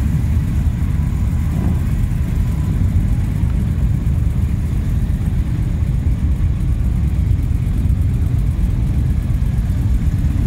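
Many motorcycle engines idling together, a steady low rumble with no single engine standing out.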